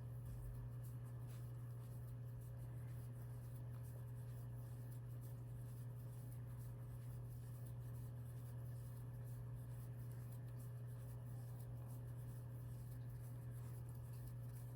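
Faint scratchy rubbing of yarn against a crochet hook as stitches are worked, over a steady low hum.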